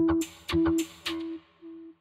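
Logo sound for a channel ident: a short held tone, opening with a sharp click and repeated about twice a second, each repeat fainter like an echo dying away.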